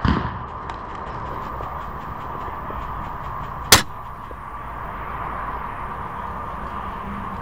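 A single sharp snap of an airsoft sniper rifle shot about halfway through, over a steady outdoor hiss. A low thump comes right at the start, and faint rapid ticks of distant airsoft fire sound in the first couple of seconds.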